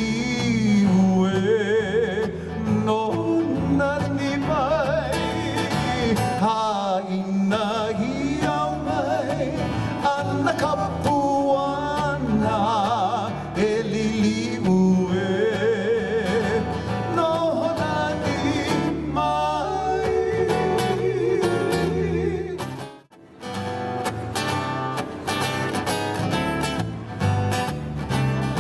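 Live Hawaiian hula music: a singer holding a wavering melody over plucked-string accompaniment. About 23 seconds in the music breaks off for a moment, then the strings start up again with steady strumming and no singing.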